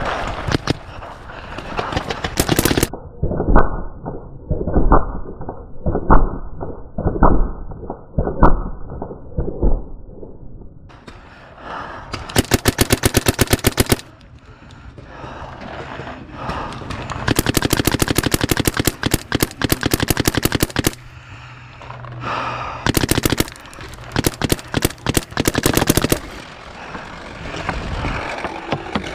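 Paintball marker firing rapid strings of shots, each string a fast, even rattle of pops, in several bursts with pauses between them. One stretch near the start sounds duller and muffled.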